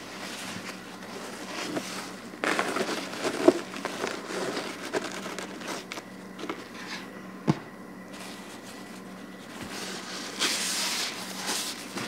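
Paper towel crinkling and rubbing as pellet crumbs are wiped out of the floor of a soft plastic-and-fabric pet carrier, in uneven bursts, with a few sharp clicks and knocks, the loudest about three and a half seconds in.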